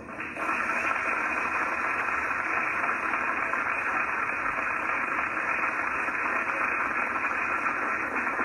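Steady static hiss, cutting in abruptly a moment after the start and holding at an even level.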